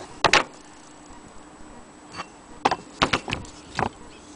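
Sharp metal clicks and clacks from the cast-iron hand wheel and crank handle of an antique Willcox & Gibbs hand-crank sewing machine being handled: one loud clack just after the start, then a cluster of several clicks about three seconds in.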